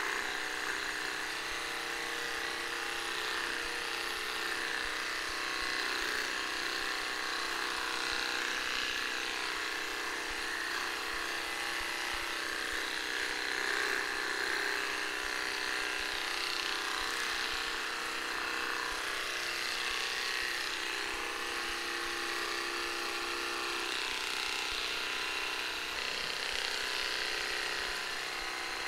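Red electric pet clippers buzzing steadily while trimming the hair on a small dog's head and ears.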